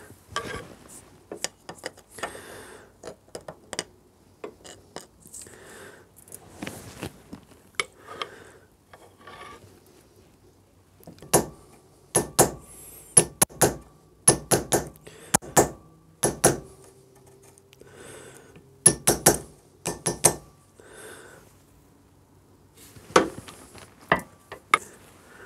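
Steel pin punch being tapped with a hammer against the ball-bearing race of a cork-lined clutch sprocket clamped in a vise, to ease the race apart: sharp metal-on-metal clinks in quick clusters, loudest in groups a little before halfway through and again near the end, with lighter clicks and rattles of handling between.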